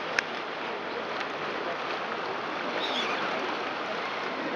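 Small waves lapping and splashing against a stone sea embankment, a steady wash of water.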